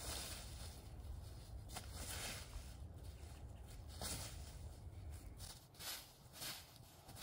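Footsteps crunching and rustling through dry fallen leaves, in irregular steps, under a low rumble that stops about five and a half seconds in.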